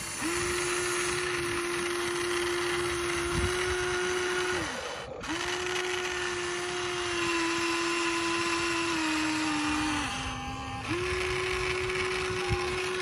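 Electric motors of a Huina RC excavator whining steadily as its arm, bucket and turntable move, with two brief stops, about five and about ten seconds in. The pitch steps down a little just before the second stop.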